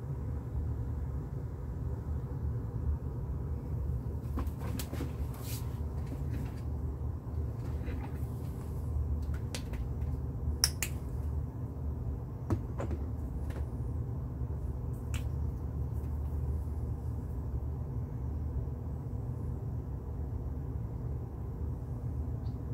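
Small plastic acrylic paint bottles being handled and set down, a scatter of short clicks and knocks, the sharpest about eleven seconds in. A steady low hum lies under it.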